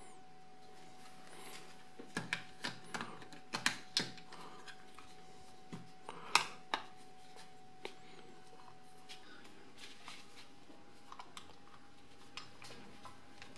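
Plastic clicks and knocks as a GoPro Hero 3 is handled and fitted into its clear plastic waterproof housing: a cluster of quick clicks, then one sharper snap, then a few lighter taps, over a faint steady high hum.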